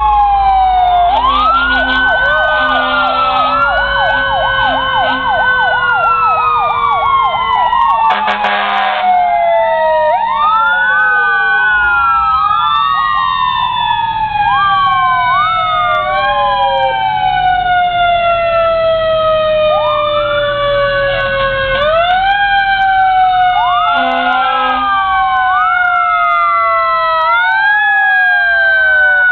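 Several fire truck sirens sounding at once as the apparatus pass, their wails rising and slowly falling, with a fast yelp warble in the first few seconds. Short horn blasts cut in about eight seconds in and again near twenty-four seconds, over the low rumble of the truck engines.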